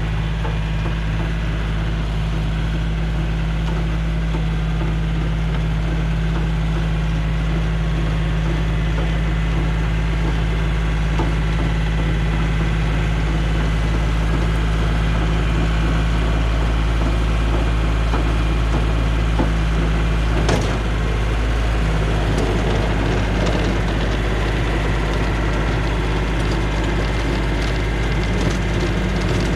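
Yanmar compact diesel tractor running steadily at working speed, driving its rear PTO rototiller as it churns garden soil. A single sharp knock comes about two-thirds of the way through, followed by a few lighter clicks.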